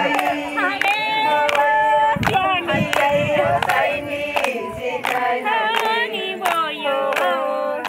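Maasai women singing together in chant-like unaccompanied song, several voices overlapping, with regular handclaps about twice a second.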